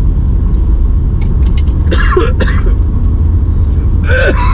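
Low, steady rumble of a Nissan Sentra's engine and road noise heard from inside the cabin while driving. Two brief throaty vocal sounds from the driver break in, about two and four seconds in.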